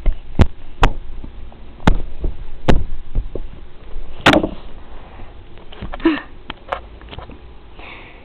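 A string of sharp, irregular knocks and bumps, about six in the first four and a half seconds, then fainter clicks and rustling. It is handling noise from a handheld camera and toys being moved about.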